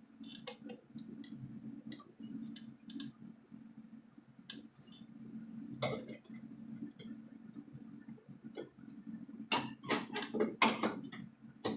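Sheet-metal patch panel clinking and tapping as it is worked and forced into place in the car body for welding. The clinks come in scattered short runs, the busiest near the end, over a steady low hum.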